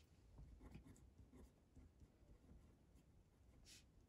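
Faint scratching of a pen on paper as a few words are handwritten in short strokes, with one brief, louder scratch near the end.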